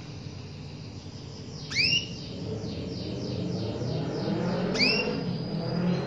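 Female domestic canary calling: two loud, rising call notes about three seconds apart, with a quick run of fainter repeated notes between them, over a low background rumble.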